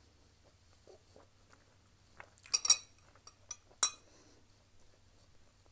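Metal spoon clinking against a glass bowl of soup while a steamed dumpling is moved in it: a quick cluster of clinks about halfway through, then one sharp clink about a second later.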